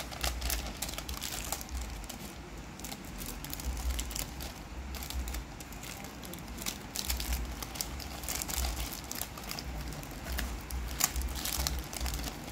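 Small clear plastic bags crinkling and rustling as they are handled, in irregular short crackles.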